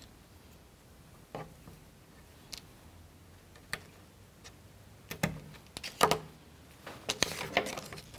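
Light clicks and taps of wooden toothpicks and small plywood kit parts being handled on a cutting mat. A few scattered clicks at first, then a busier, louder run of clicks and short scrapes in the last three seconds.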